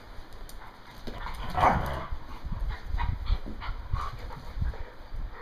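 Two dogs play-wrestling on a tile floor: short play vocalizations, loudest about one and a half seconds in, with a few shorter ones around three to four seconds, over bumps and scrabbling of paws on the tiles.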